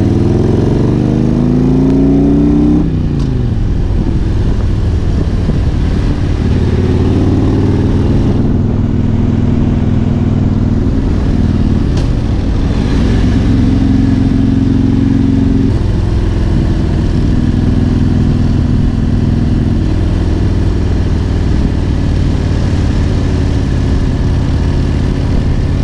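Harley-Davidson Road King's Twin Cam 88 V-twin engine under way, heard from the rider's seat. It revs up over the first few seconds and drops sharply as the throttle is eased, then runs steadily with a few small shifts in pitch.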